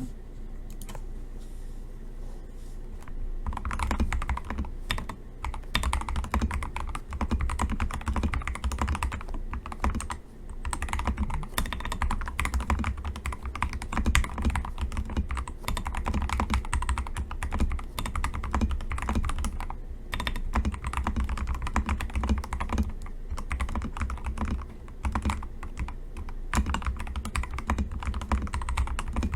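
Typing on a custom mechanical keyboard with hand-lubed Akko CS Jelly Pink linear switches. A few scattered keystrokes come first, then steady fast typing from about three and a half seconds in.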